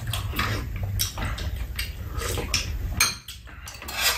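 Metal spoons and chopsticks clinking and scraping against ceramic bowls during a meal: a string of short, irregular clicks, with a low rumble under the first second.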